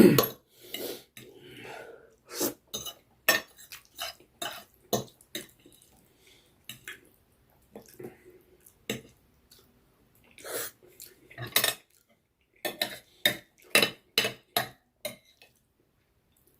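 Eating noodles and chicken legs: irregular short clicks and taps of cutlery against a dish, with brief pauses between them.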